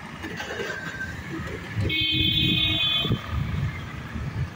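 Motorcycle engines running as traffic moves off over a level crossing. A vehicle horn honks once about two seconds in, held for about a second, loudest of all.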